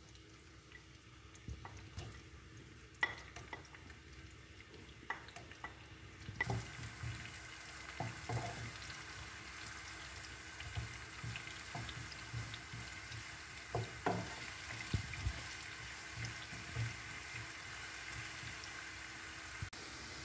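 Sliced onions frying in hot coconut oil in a pan: a few light clicks at first, then about six seconds in a steady sizzle starts. A spatula knocks and scrapes against the pan as the onions are stirred.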